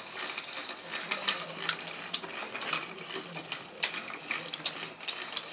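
Irregular sharp metallic clicks and rattles over a faint steady low hum, as the engine and its hoist hardware are worked into position over the mounts.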